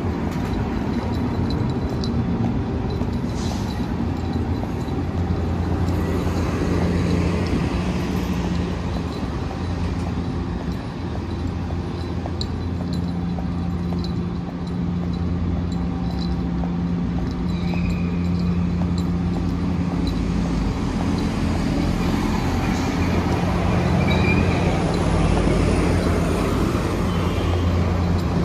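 City street traffic: motor vehicles running and passing, with a steady low engine hum.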